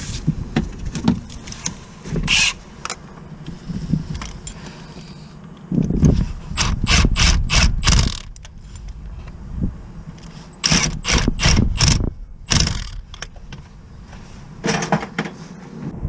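Mechanic's tools at work on a car: three spells of rapid sharp metallic clicking, ratchet-like, with scattered knocks between them.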